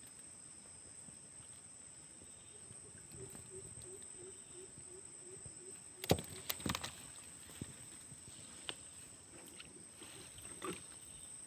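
Faint water sloshing around a boat, over a steady high whine. A few sharp knocks come a little after halfway, with more near the end.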